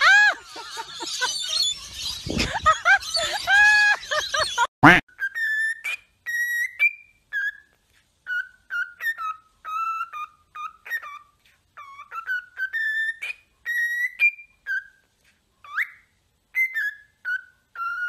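A woman laughing, with birds calling, for about the first five seconds. Then, after a sharp click, a cockatiel whistles a string of clear short notes, some sliding up or down in pitch, with short gaps between them.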